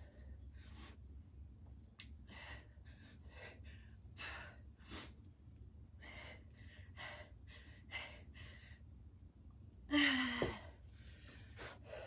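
A woman breathing hard through a set of one-arm kettlebell rows: short, forceful breaths in and out, about one or two a second. About ten seconds in comes a louder voiced sigh that falls in pitch as the set ends.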